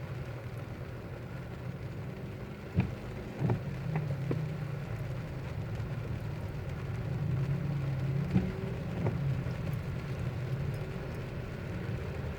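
Car in slow, stop-and-go traffic heard from inside the cabin: a steady low engine and road drone, with rain and a few sharp taps a few seconds in and again later.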